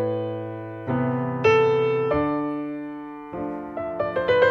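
Background piano music playing slow, sustained chords, with a new chord struck about every second. A quick run of notes comes near the end.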